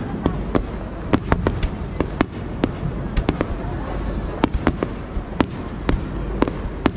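Fireworks display: an irregular string of sharp bangs and pops, several a second, over a steady low rumble.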